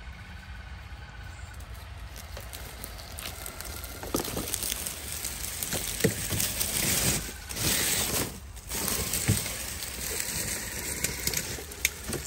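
Traxxas TRX-4 Defender RC crawler driving over dry leaf litter and twigs, its tyres crackling and snapping through the leaves. The crackling grows louder from about four seconds in as the truck comes close.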